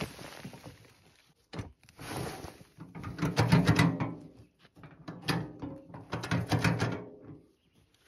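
Wheelbarrow tipped and shaken to dump a load of sawdust and bark: clunks and rattles from the barrow as the load slides out, in several bursts, the loudest about three and a half seconds in.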